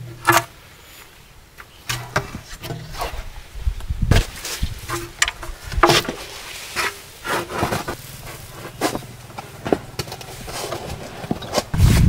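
Aluminium floor panels knocking and clattering against each other and the frame as they are set into an inflatable boat, a run of sharp irregular knocks. A low insect buzz comes and goes underneath.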